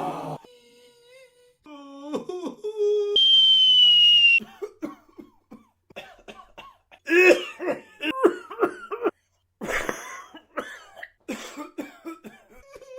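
A string of short human vocal sound effects played one after another, mostly coughing and throat clearing, broken up by short gaps. A brief high tone sounds about three seconds in.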